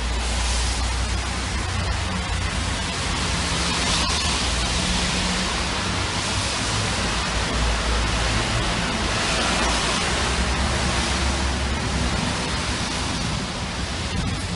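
Steady hiss with a low rumble underneath, no distinct events.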